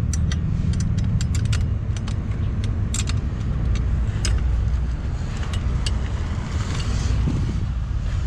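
Sharp metallic clicks and rattles, about a dozen in the first four seconds, from working the clamp of a bicycle seat post that has slipped down about half an inch, over a steady low rumble.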